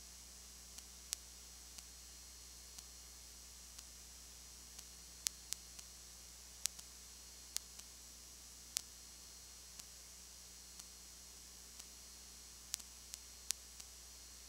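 Steady recording noise, a low hum under a hiss, with faint ticks about once a second and a few sharper clicks; no sound from the game itself is heard.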